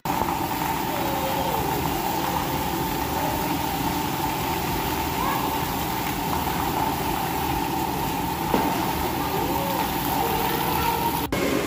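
Steady hiss of water jets spraying from splash-pad fountains, over a constant hum in the echoing indoor pool hall. Faint children's voices rise and fall, and there is a soft knock about eight and a half seconds in.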